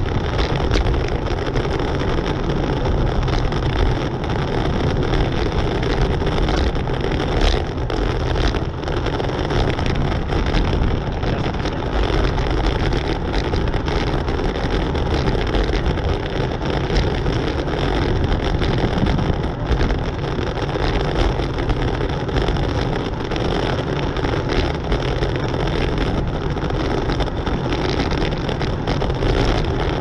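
Steady rush of wind buffeting a bicycle-mounted camera's microphone while riding at about 20 mph, with quick uneven gusts.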